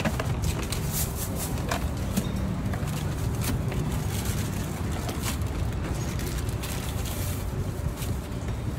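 A steady low rumble of passing traffic, with many light clicks and taps from a clear plastic takeaway box and a spoon being handled.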